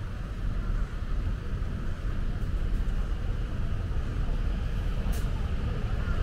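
City road traffic on a rain-wet street: a steady low rumble of cars with the hiss of tyres on the wet road.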